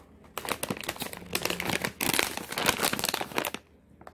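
Plastic chip bag of Deep River Snacks crinkling as it is handled in the hand, in a dense irregular crackle that stops shortly before the end.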